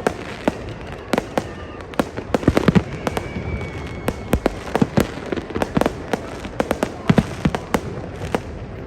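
Fireworks display: shells bursting in quick, irregular succession, several sharp bangs a second over a continuous rumble.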